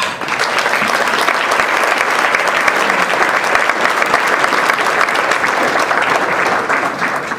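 Audience applauding, a dense patter of many hands clapping that starts all at once and begins to die down near the end.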